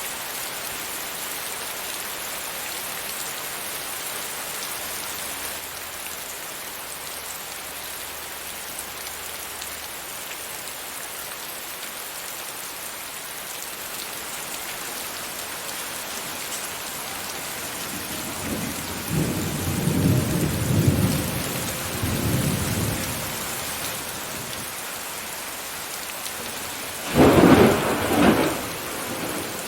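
Steady rain falling throughout. About two-thirds of the way through, a low rolling rumble of thunder builds; near the end comes a louder, sharper thunderclap.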